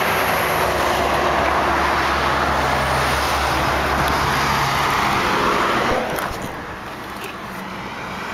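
2007 Chevrolet Impala LT idling with a steady low hum, under a loud rushing noise of road traffic that falls away about six seconds in.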